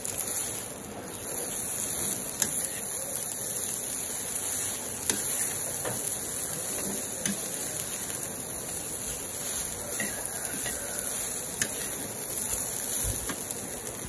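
Rice sizzling as it fries in a metal wok: a steady high hiss. A slotted metal spatula stirs it, scraping and clicking against the pan a few times.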